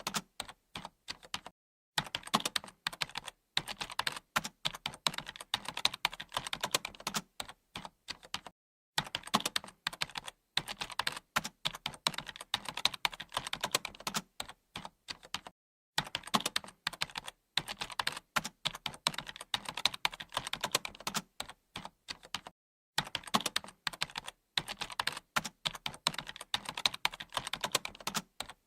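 Computer keyboard typing: rapid, continuous keystroke clicks in runs of several seconds, broken by brief silent pauses about every few seconds.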